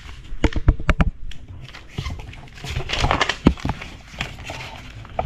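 Origami paper being folded by hand: a sheet rustling and crinkling as it is creased, with several sharp taps of fingers pressing the folds flat on a wooden floor, clustered about half a second in and again around three seconds in.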